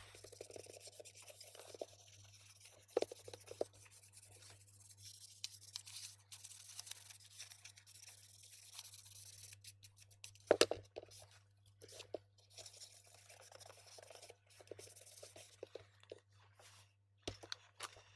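Small plastic device being cleaned and handled by hand: scratchy rubbing and scrubbing on its casing, broken by small clicks and knocks, with one louder knock about ten seconds in. A faint steady low hum runs underneath.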